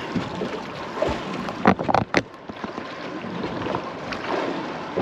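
Small boat at sea: steady water and wind noise around the hull, with a faint steady tone underneath. A quick run of three sharp knocks about two seconds in.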